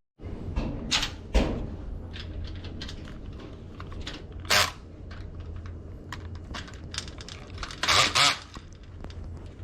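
Small clicks, taps and clatter of lock parts and hand tools being handled, over a faint steady hum, with short louder rasps a few times: about one and a half, four and a half and eight seconds in.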